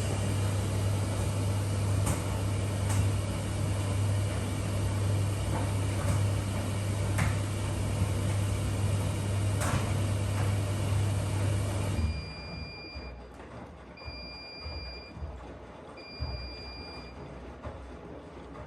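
Miele W1 washing machine running with a loud steady hum and occasional light clicks, which cuts off suddenly about two-thirds of the way in. Three beeps follow, each about a second long and two seconds apart, in the pattern of an end-of-programme signal.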